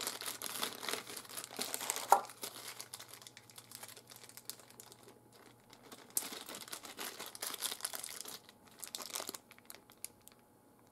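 Clear plastic zip bag crinkling as it is handled and opened, in two spells, with a single sharp click about two seconds in.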